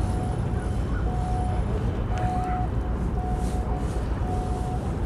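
Steady low rumble of tugboat diesel engines working a container ship at its berth. Over it an electronic warning beeper sounds about once a second, each beep about half a second long.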